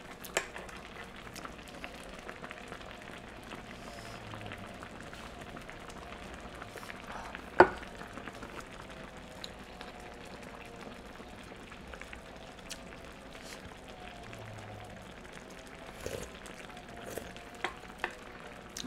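Budae jjigae simmering in an electric hot pot, a steady bubbling and sizzling hiss, with light utensil clicks and one sharp clink of a utensil against the pot about seven and a half seconds in.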